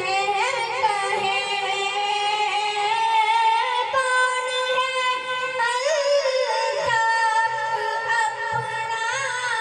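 A boy reciting a naat in a melodic chanting voice into a microphone, drawing out long held notes with gliding ornaments between them.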